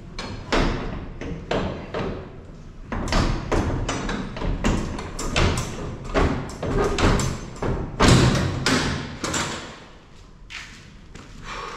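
Repeated heavy thuds, about two a second, of feed sacks being thrown down and stacked, thinning out near the end.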